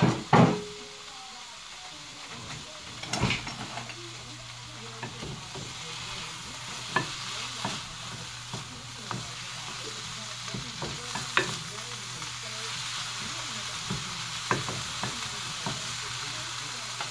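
Garlic, tomato and mushrooms sizzling steadily in a frying pan while being stirred with a wooden spoon, with scattered scrapes and light knocks of the spoon against the pan. Two loud knocks come right at the start.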